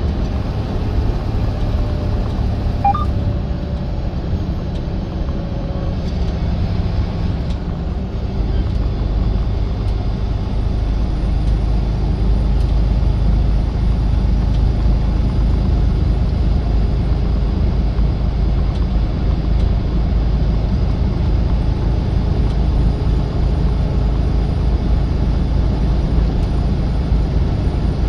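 Semi-truck running down the road: a steady low engine and road rumble that grows a little louder about eight seconds in.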